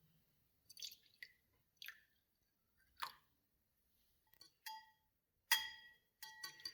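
Close-miked kitchen preparation sounds: a few separate soft taps and scrapes, then near the end two ringing clinks against a bowl, the second the loudest.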